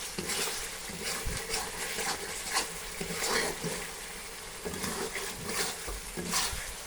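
Chicken frying and sizzling while it is stirred, with irregular scraping strokes through the sizzle.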